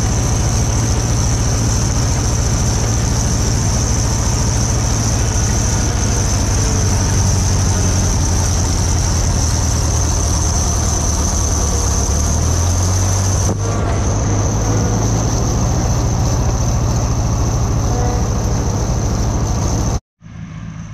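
Farm machinery engines running steadily at close range: a John Deere B tractor pulling a ground-driven manure spreader as it throws manure, alongside a Gehl 4400 skid-steer loader, with a steady high-pitched whine over a low, even throb. The sound cuts off abruptly near the end.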